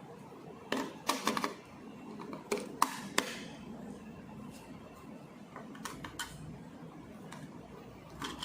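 Sharp plastic clicks and knocks from a battery-powered video doorbell being handled as its batteries are fitted: a cluster about a second in, another around three seconds in, then a few lighter taps.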